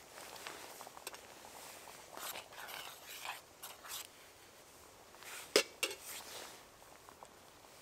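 A metal spoon stirring thick soup in a metal camping pot, scraping against the pot, followed a little after halfway by two sharp metal clinks in quick succession.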